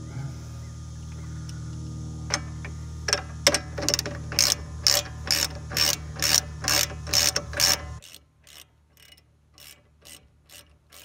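Hand ratchet clicking in short strokes, about two a second, as a loosened brake caliper bolt is backed out; the strokes are loud at first and fainter after about eight seconds. A steady low hum behind them stops suddenly about eight seconds in.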